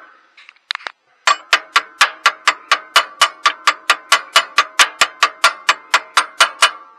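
Small hammer tapping a steel roll pin into a Case Ingersoll tractor's travel control lever rod: rapid, ringing metal-on-metal strikes at about four a second, with a brief pause about a second in.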